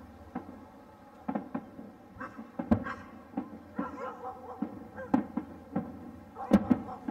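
Distant fireworks display: an irregular string of bangs and pops with short echoing tails, the loudest cracks about two and a half seconds in and again near the end.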